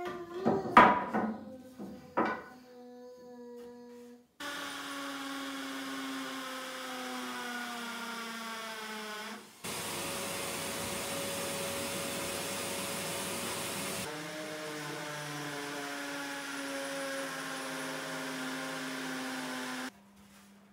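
A cordless drill running in long stretches, its pitch slowly falling, with a steadier hissing stretch in the middle and abrupt cuts between them. A few short, loud pitched sounds come in the first two seconds.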